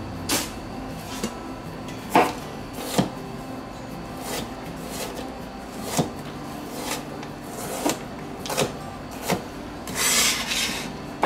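Chef's knife dicing onion on a cutting board: irregular knocks of the blade hitting the board, about one a second. Near the end comes a short rasping scrape across the board.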